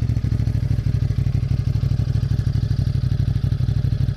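Motorcycle engine running steadily at low revs with a fast, even throb.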